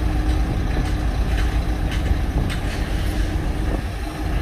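Crawler excavator's diesel engine running steadily under load as the machine slews its upper structure and moves its boom and arm, with a few light clanks mixed in.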